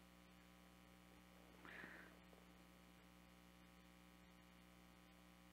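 Near silence: a steady electrical hum, with one faint, brief rustle about two seconds in.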